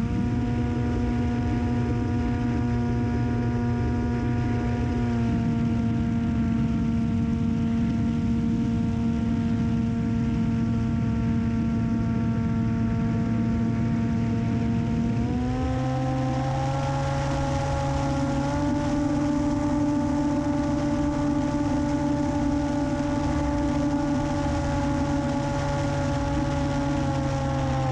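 Onboard sound of an RC plane's Emax 2215 brushless motor spinning a 10x4.5 propeller at steady cruise. It holds a whine of several steady tones. About halfway through it is throttled up, and the pitch glides higher while the rushing air noise grows. It drops back down at the very end.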